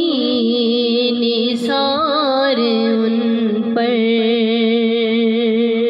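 A voice singing a naat, drawing out long held notes with a slight waver between the sung lines.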